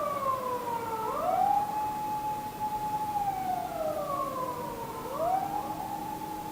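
Emergency vehicle siren wailing: a tone that holds high, slides down over about a second, then sweeps quickly back up, twice.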